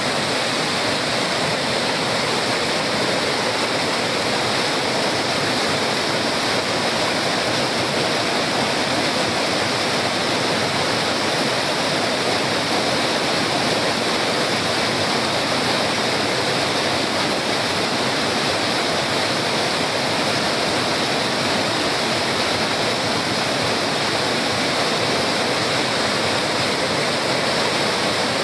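Waterfall: white water crashing steadily over rocks and tree roots in a constant, loud rush.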